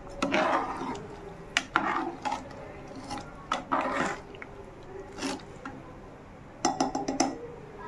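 A spoon stirring rice and water in an aluminium pressure cooker, in short bouts of scraping and clinking against the pot with some sloshing. Near the end comes a quick run of five or six sharp clinks.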